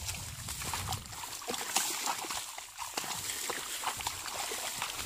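Hands groping in shallow muddy water in a flooded rice field: irregular small splashes, squelches and sloshing as the hands feel through the mud for fish.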